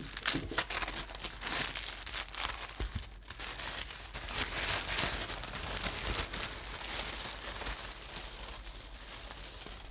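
Thin tissue paper being unfolded and pulled open by hand, crinkling and rustling in a continuous run of small crackles.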